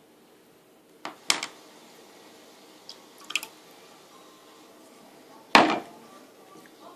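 Kitchenware clattering: a few sharp knocks and clinks as pots and dishes are handled, the loudest about five and a half seconds in, over a faint drip of water.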